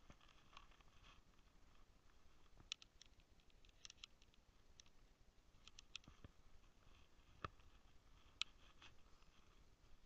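Near silence broken by faint, irregular clicks and ticks from a baitcasting rod and reel being handled.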